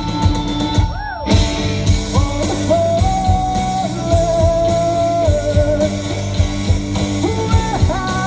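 Rock band playing live through a big PA: drum kit with a steady beat, electric guitars, and a singer holding long notes. A pitch swoops up and back down about a second in.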